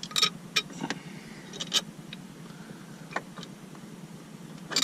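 Irregular sharp clicks and taps from a grab-handle grip and its screw being handled and pressed into place while the screw is tried and fails to start, over a steady low hum.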